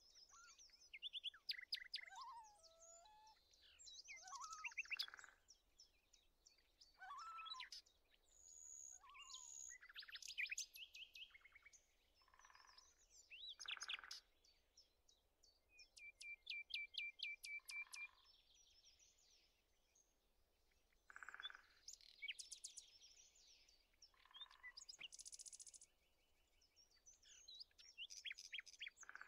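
Quiet songbird chorus: several birds singing and calling with chirps, whistled phrases and trills, including a rapid even trill a little past halfway through.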